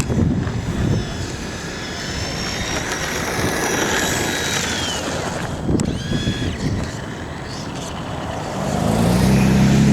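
Electric motor of a radio-controlled monster truck whining, its pitch rising and falling as it speeds up and slows, over wind buffeting the microphone. About nine seconds in, a deeper steady engine hum comes in.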